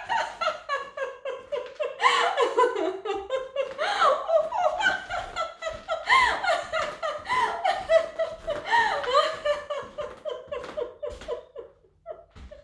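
A woman laughing in a monkey-style laugh, a rapid run of pulsing laughs with rising whoops, tailing off about a second before the end.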